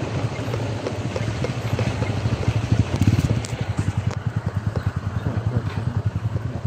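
Small motorcycle engine running as the bike rides along, its exhaust a steady rapid low pulsing.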